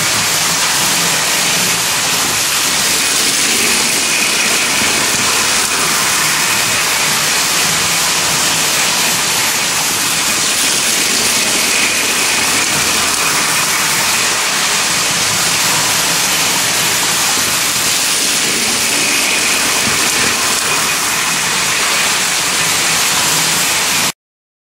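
Toy electric trains running on tinplate track: a steady rolling whir of wheels and motors with a faint hum under it. It cuts off suddenly near the end.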